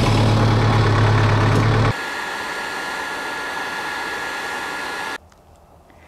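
A torch flame heats the truck's rusted steel frame with a steady hiss. For the first two seconds a deep hum sits under it; then a cut drops it to a quieter, even hiss, which stops about five seconds in.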